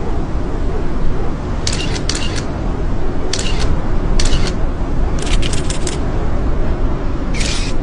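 Strong wind buffeting the microphone in a loud, steady low rumble. Short, sharp high-pitched crackling bursts cut in, in small clusters, about two, three and a half, four and a half and five and a half seconds in and again near the end.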